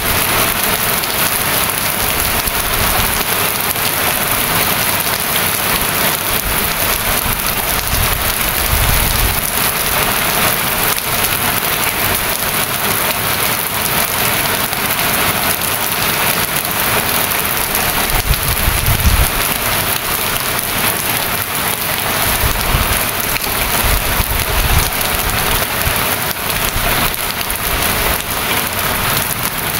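Rain falling steadily, a dense, even hiss of drops on surfaces, with a few brief low rumbles about nine and nineteen seconds in.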